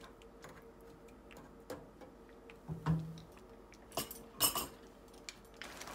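A handful of light knocks and clicks from a wooden spatula against a non-stick pan and the counter as the stirring stops and the spatula is set down, the loudest cluster about two-thirds of the way in. A soft hiss from the simmering tomato sauce comes up near the end.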